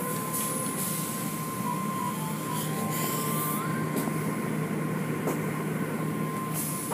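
Automatic tunnel car wash heard from inside the car: a steady run of machinery noise and water spray, with a constant high whine, as the hanging cloth curtains wash over the car. Short hissing spells of spray come and go.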